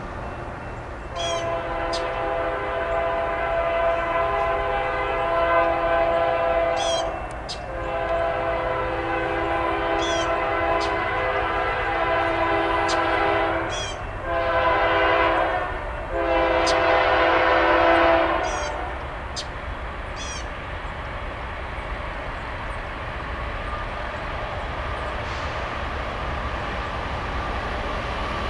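Union Pacific freight locomotive's air horn sounding the grade-crossing signal: two long blasts, a short one and a final long one. The rumble of the passing train follows.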